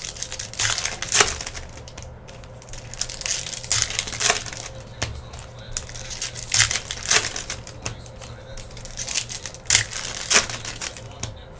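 Foil wrappers of Panini Donruss Soccer card packs crinkling and tearing as they are ripped open by hand, in short crackly bursts, often two about half a second apart.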